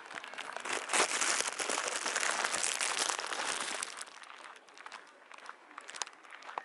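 Loud rustling, crackling noise for about three seconds, then fainter scattered crackles and clicks.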